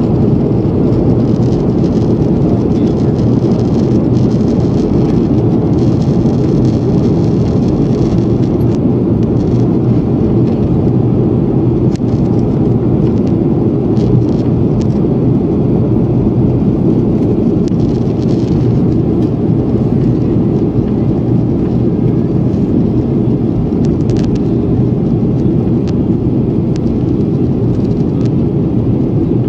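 Jet airliner cabin noise at a window seat: a steady, loud rush of engines and airflow, deep and even, with a faint low hum underneath.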